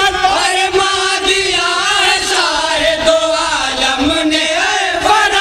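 A group of men singing a naat unaccompanied in unison into a microphone, stretching a line's syllables into long held notes that waver in pitch.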